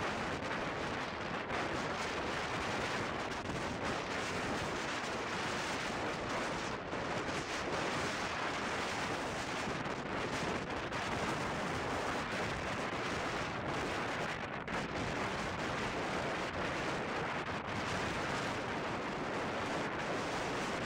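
Wind rushing and buffeting over the microphone of a motorcycle riding at highway speed, about 75 km/h, with the road and riding noise under it; it stays steady and dense throughout.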